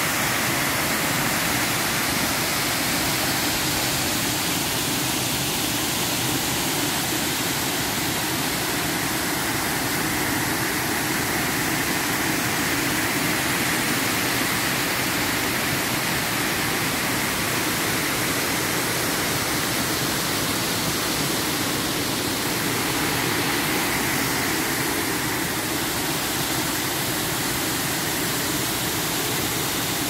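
Waterfall pouring over a low stone weir, a steady rushing of water.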